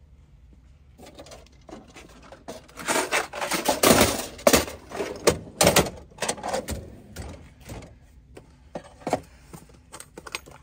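Metal tool drawers in a truck's storage cabinet sliding shut and another pulled open, with tools and bits rattling and clattering inside. The loudest clatter comes around the middle, followed by scattered lighter clicks and knocks.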